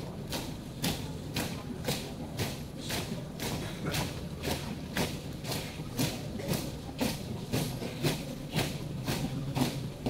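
A marching troop's shoes striking pavement in step: a steady, regular beat of stomps, over a low hum.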